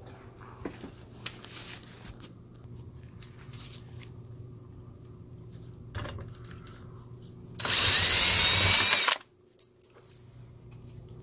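Cordless drill/driver backing a mounting screw out of an exit sign's ceiling bracket, running for about a second and a half near the end with the motor's whine rising in pitch, then cutting off suddenly.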